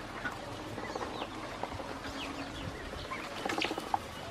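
Ducklings peeping, a scatter of short, high falling chirps, with a few light clicks and taps among them.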